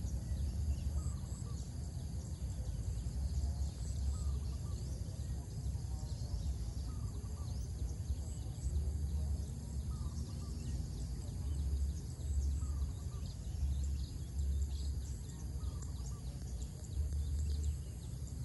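Open-air rural ambience with wind buffeting the microphone in uneven gusts. Small birds chirp faintly throughout, and one bird gives a short call about every two and a half seconds.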